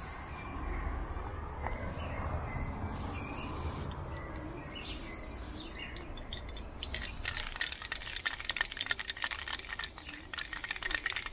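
Aerosol spray-paint can hissing in short bursts as lines are sprayed onto a wall, with a longer, crackling burst starting about seven seconds in.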